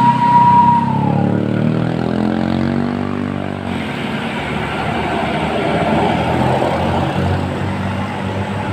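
A bus's basuri musical horn holding one high note that bends down and stops about a second in, then the bus's engine running as it passes, followed by steady road-vehicle noise.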